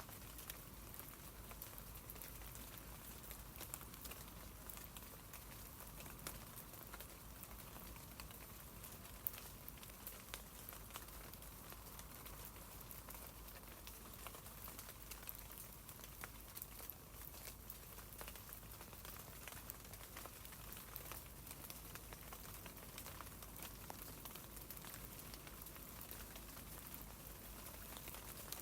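Light rain pattering on tree leaves: a faint, steady hiss of many small drop ticks.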